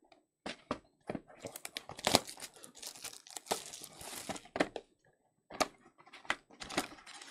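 Plastic shrink wrap being torn off a trading-card hobby box and crumpled in the hands, in irregular bursts of crinkling and crackling, loudest about two seconds in and again a little past the middle.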